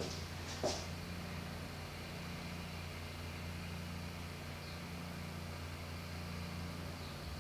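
Steady low mechanical hum with light hiss, with a single sharp click just under a second in.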